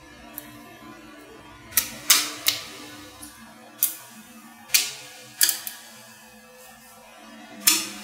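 Small metal magnetic balls clicking sharply as strips of them snap onto the build, a string of about ten clicks at irregular intervals, the loudest about two seconds in and near the end.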